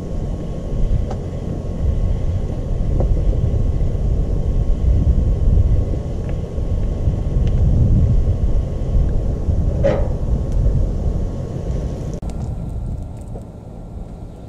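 Wind buffeting the microphone outdoors: a loud, uneven low rumble, with a short knock about ten seconds in. It grows quieter over the last couple of seconds.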